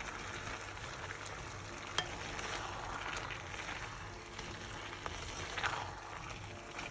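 Pan of minced-meat and vegetable filling sizzling steadily as diced potatoes go in, with a single sharp click about two seconds in.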